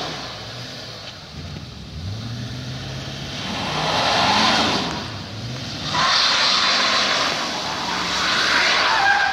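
Chevrolet full-size pickup truck's engine revving up and down several times in a burnout attempt on wet pavement. A loud rushing hiss of tyres on the wet road comes in with the hardest revs, about four seconds in and again from six seconds on.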